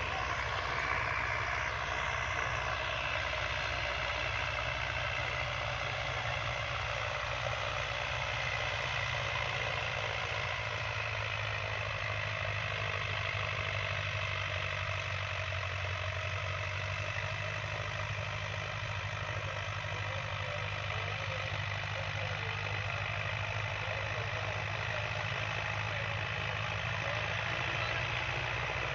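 Diesel tractor engine running steadily under load while it pulls a disc harrow through ploughed soil, a low even drone.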